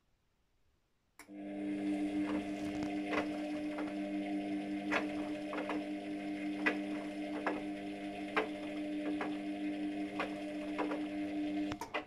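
Luxor WM 1042 front-loading washing machine in its cotton wash phase: about a second in the drum motor starts with a click and runs with a steady hum, while the wet laundry sloshes and knocks in the turning drum. The motor stops with a click just before the end.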